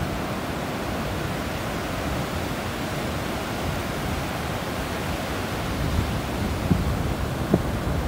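Ocean surf: rows of waves breaking and washing into the shallows, a steady rushing hiss.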